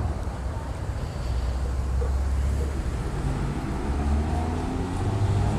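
Motorcycle engine idling amid street traffic noise, a steady low rumble.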